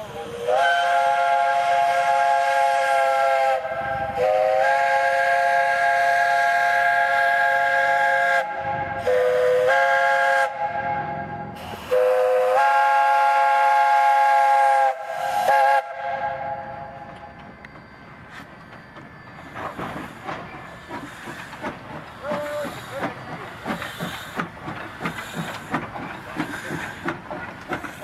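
Steam locomotive whistle sounding a chord of several notes, blown long, long, short, long: the grade-crossing signal. The whistle is on a small 0-6-0 saddle tank engine. After that the engine rolls past with steady exhaust chuffs about once a second and a steam hiss.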